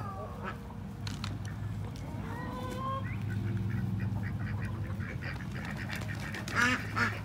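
Free-ranging chickens calling: a few short calls a couple of seconds in and a louder burst of calls near the end, over a steady low hum.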